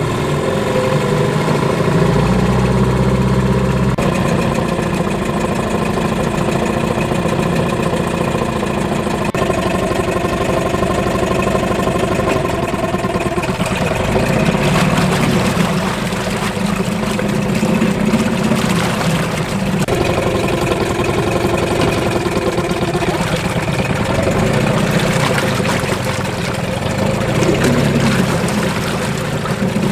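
2004 Mercury 8 hp two-stroke outboard running steadily with its lower unit in a barrel of water, the water churning around it. Its note shifts a few times, at about 4, 13 and 20 seconds in.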